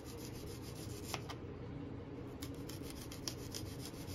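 Kitchen knife sawing back and forth through a whole red onion on a wooden cutting board, slicing it into rings: soft, quick rhythmic rasping strokes with a few sharper clicks.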